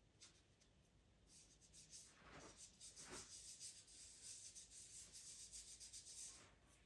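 Faint, quick scratchy strokes of a white pastel stick rubbing on pastel paper. They start about a second in and stop shortly before the end, with two slightly heavier strokes about two and three seconds in.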